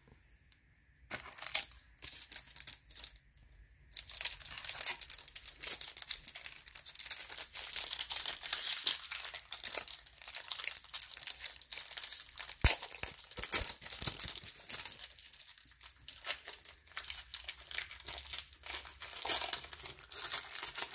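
Trading card pack wrappers being torn open and crinkled by hand. A few short crackles come first, then dense, continuous crinkling from about four seconds in.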